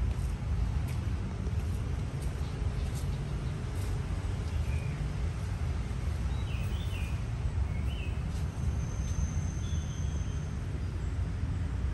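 Outdoor ambience: a steady low rumble, with a few short bird chirps around the middle and a thin high whistle for about two seconds near the end. Faint clicks come in the first few seconds.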